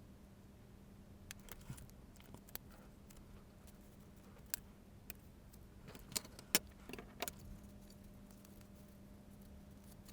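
Scattered light clicks and taps from handling a small computer and its keyboard membrane, the loudest few in a quick cluster just past the middle, over a faint steady hum.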